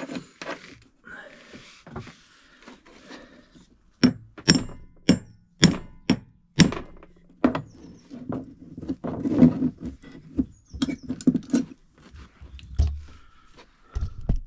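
Sharp knocks and clicks from handling a heavy-duty circuit breaker and its battery cable and terminals on a fibreglass deck: a run of about a dozen from about four seconds in, coming roughly twice a second, then thinning out.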